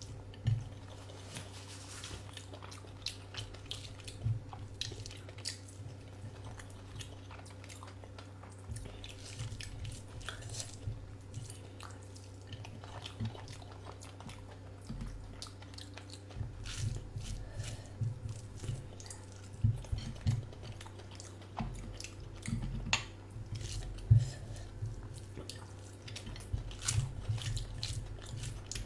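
A person eating a curry meal close to the microphone: chewing, biting and wet mouth clicks come at irregular intervals, busier in the second half, over a steady low hum.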